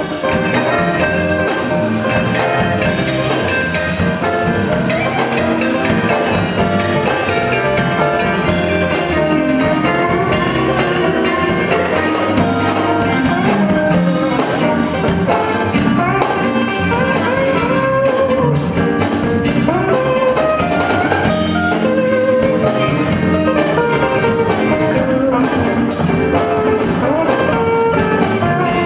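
Live blues band playing an instrumental passage: two electric guitars, electric bass and drum kit, with no vocals.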